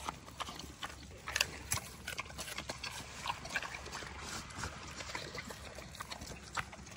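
Pot-bellied pig eating lettuce and rooting with its snout through dry leaf litter: a run of irregular short crunches, chomps and rustles, several a second.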